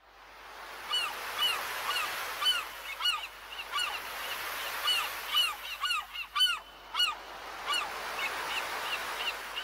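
Gulls calling, a rapid string of short arched cries, several a second, over a steady hiss. The sound fades in over about the first second.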